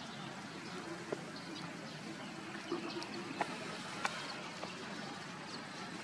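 Puppies' paws padding and rustling through grass, a few faint short ticks over a steady outdoor background hiss.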